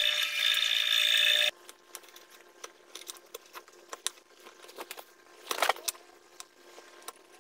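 Drill press motor running steadily as the bit drills through a wooden block, stopping abruptly about a second and a half in. Then quiet, scattered clicks and taps of a hand chisel paring out a square hole in the wood, with one louder burst a little past halfway.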